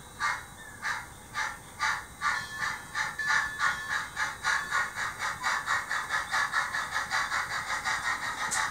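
HO-scale model steam locomotive's sound decoder chuffing as the locomotive pulls away, the exhaust beats starting about two a second and quickening steadily to about four a second.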